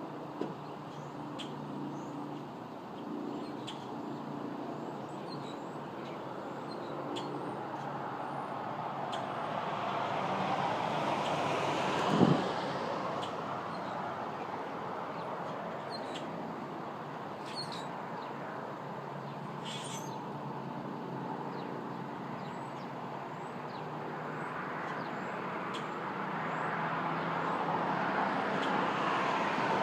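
Road traffic passing: a broad noise swells to a peak about twelve seconds in and builds again near the end, with a sharp knock at the first peak, the loudest moment. Short, faint bird chirps come and go throughout.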